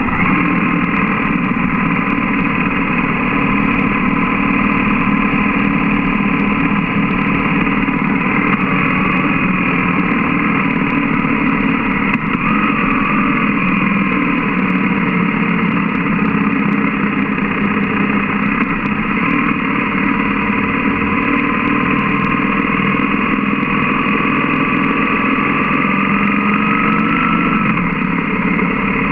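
BMW GS motorcycle's boxer-twin engine running steadily at low road speed, heard from the bike, with a thin whine that slowly wavers in pitch.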